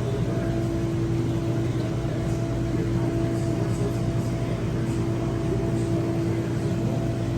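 Steady mechanical hum: a low tone and a higher steady tone over a soft even hiss, unchanging throughout.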